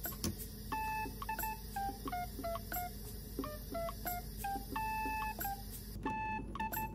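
Background music: a light, bouncy melody of short, beep-like synth notes stepping up and down in pitch.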